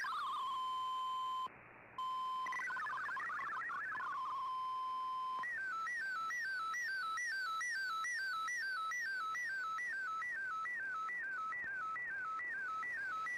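Shortwave Radiogram MFSK digital signal received on an Icom IC-R8600 shortwave receiver. The warbling text-data tones end into a steady single tone, which drops out for half a second about a second and a half in. A short burst of data tones follows, then the steady tone again. About five seconds in, the MFSK picture transmission starts: a falling stepped warble that repeats about two and a half times a second, one sweep for each image line sent.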